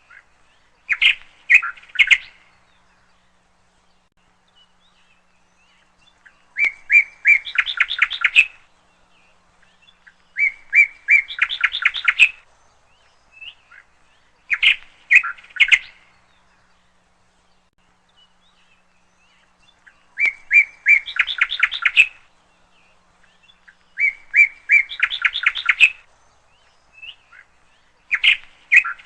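A bird singing: short phrases of a few notes ending in a quick run of notes, repeated about every four seconds.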